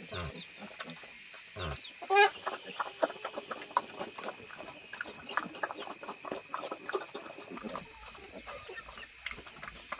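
An animal call, loud and rising, about two seconds in, among many light clicks and taps.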